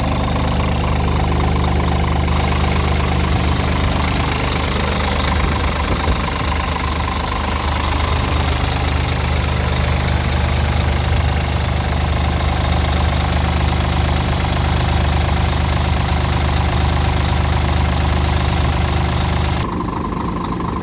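The 13-litre inline-six diesel of a Scania P 450 Euro 6 truck idling steadily, heard at the open engine bay. Near the end the sound turns duller.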